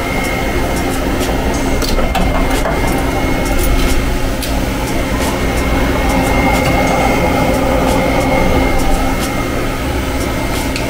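Steady mechanical running noise of workshop machinery with a constant high-pitched tone, and scattered light clicks and metal knocks.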